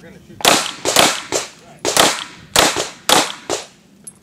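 Semi-automatic pistol fired in a quick string of about seven shots, roughly half a second apart, each followed by a short echo.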